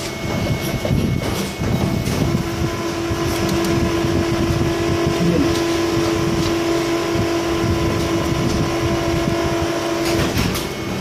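Loud, steady machinery noise. A steady hum comes in about two seconds in and stops near the end.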